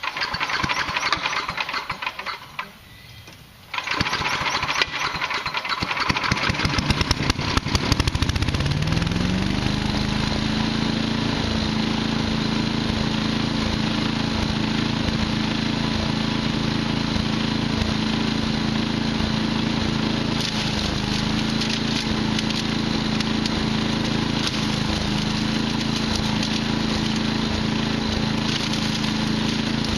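Wood chipper's small petrol engine being started: it sputters and catches unevenly, pauses briefly, sputters again, then about eight seconds in it picks up with a rising tone and settles into a steady run.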